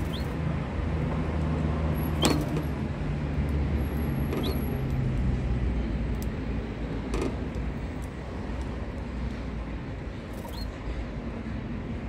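Steady low mechanical rumble, easing somewhat after about six seconds. Over it come three short rising chirps from the canaries and two sharp clicks.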